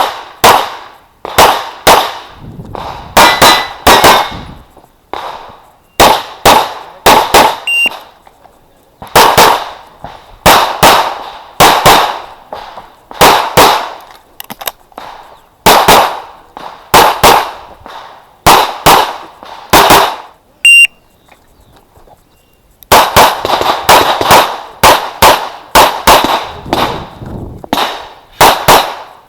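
CZ Shadow 2 9mm pistol fired in rapid pairs and strings of shots, with short breaks between strings and a longer pause of about two seconds past the middle.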